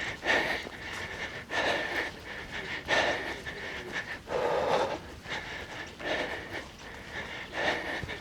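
A runner breathing hard through a tiring stretch of a race, about six heavy breaths, one every second and a half or so. A faint steady high tone runs underneath.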